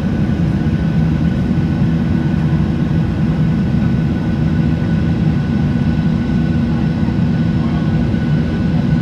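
Cabin noise of a Boeing 737-800 climbing after takeoff, heard from inside over the wing: a steady low drone of its CFM56 jet engines and rushing air, with a few faint steady whining tones above it.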